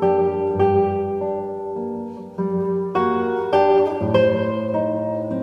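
Classical guitar music: unhurried plucked notes and chords, a new note about every half second, each ringing over the next.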